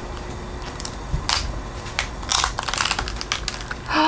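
Steamed swimming crab's shell cracking and crackling as its top shell is pried off by hand: a few short crackles, a quick cluster about two and a half seconds in and another near the end.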